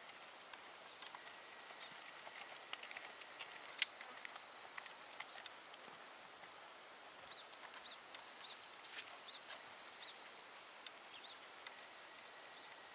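Faint, distant hoofbeats of a horse loping through soft arena dirt, heard as scattered soft clicks with one sharper tick about four seconds in. A series of short high chirps comes in the second half.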